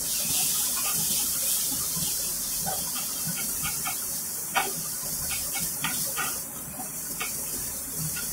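Food sizzling in a wok during a stir-fry, with a steady hiss and a metal spatula clinking and scraping against the pan several times.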